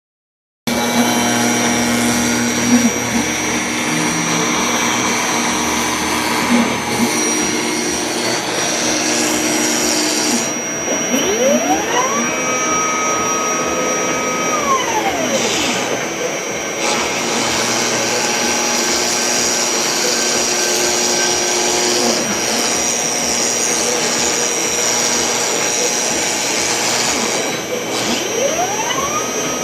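CNC router cutting a part: the spindle runs with a steady high whine over a loud rushing noise. Twice a tone rises in pitch, holds and falls again as the machine's axes travel.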